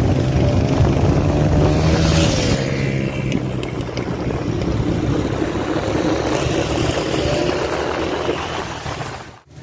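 Motorcycle engine running while riding along a road, with wind and road noise. The engine pitch rises and falls briefly about two seconds in.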